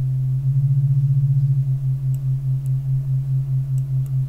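Sylenth1 software synthesizer holding one low, plain tone on two detuned unison voices, so that the tone wobbles in level as the voices beat against each other. About half a second in, the wobble is a fast flutter; after about a second it slows to a pulse of roughly three a second as the detune amount changes.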